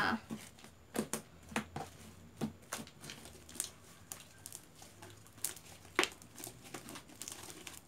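Fluffy slime being kneaded and folded by hand on a table, giving irregular sticky clicks and pops.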